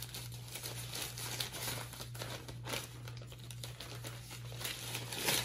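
White protective wrapping crinkling and rustling in irregular strokes as a Sony A7 III camera body is unwrapped by hand, loudest just before the end.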